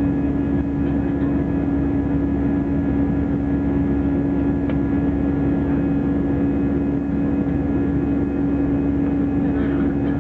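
Airliner engines heard from inside the cabin: a steady, unchanging drone with a strong low hum and fainter steady tones above it.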